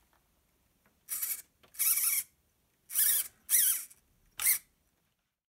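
Model truck's steering servo whining in five short bursts, each with a wavering pitch, as it turns the front wheels from side to side.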